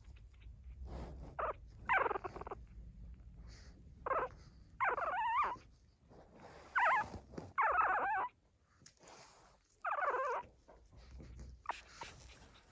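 Two-week-old pug puppy whimpering: a string of short whines with wavering pitch, about eight in all.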